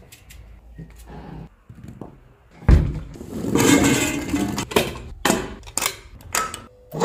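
Kitchen food-prep sounds: a sharp thud about three seconds in, then a rattling clatter and a run of separate knocks as vegetables and steel utensils are handled.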